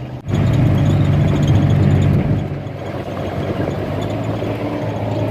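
A vehicle engine running steadily, with a low even hum and road noise. It gets louder about a quarter second in and eases slightly after about two seconds.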